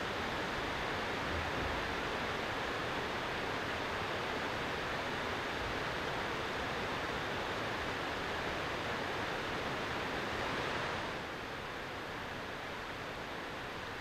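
Steady rushing outdoor noise with no distinct events, dropping slightly in level about eleven seconds in.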